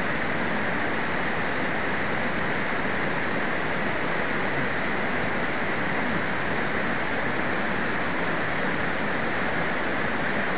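Floodwater pouring over a low concrete weir: a steady, even rush of falling water.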